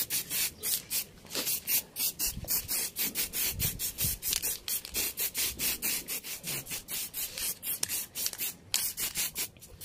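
Sherlux aerosol spray-paint can hissing in rapid short bursts, about four or five a second, as Art Yellow is sprayed onto a motorcycle fairing in a light coat.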